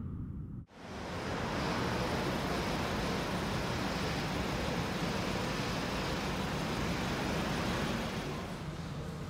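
The low rumble of an intro sound effect cuts off under a second in. It gives way to steady outdoor ambience with traffic: an even hiss and rumble with no distinct events, easing slightly near the end.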